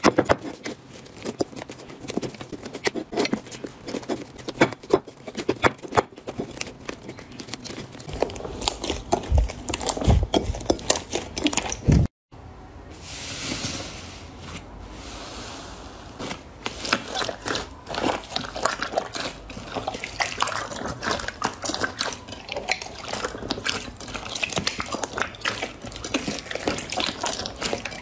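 Hands squishing, pressing and kneading slime in a bowl: a dense run of sticky clicks, pops and squelches. The sound cuts out briefly about twelve seconds in, comes back softer with a hiss, then returns to busy wet popping.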